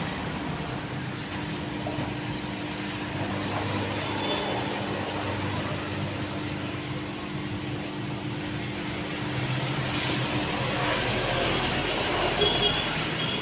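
Steady background noise with a low, even hum.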